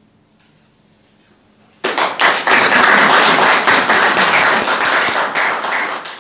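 Audience applause after the end of a stage performance: after about two seconds of quiet room tone with a faint low hum, loud clapping from many hands breaks out suddenly and keeps going, starting to fade right at the end.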